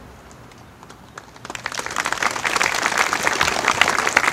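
Audience applauding, beginning about a second in and quickly swelling into steady clapping.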